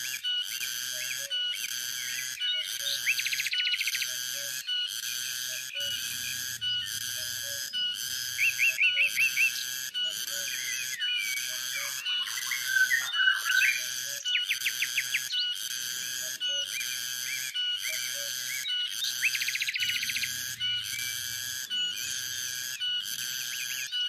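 Cicada chorus pulsing steadily, a little faster than once a second. Over it a bird calls several times in quick runs of short notes, the loudest sounds here, with a more warbled call about halfway.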